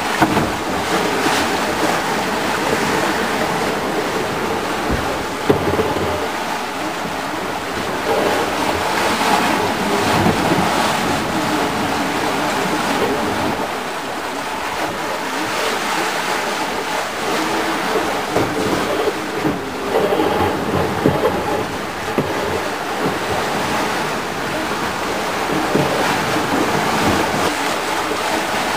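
Sea water rushing and splashing around a sailing trimaran under way in choppy seas, with wind on the rigging and buffeting the microphone, and a few brief louder knocks or splashes.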